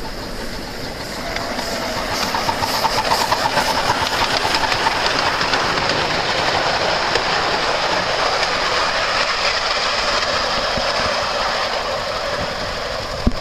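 Miniature ride-on live-steam locomotive running past with its train: a steady hiss and rush of steam with the rattle of its wheels on the rails. It grows louder a second or two in as it draws near.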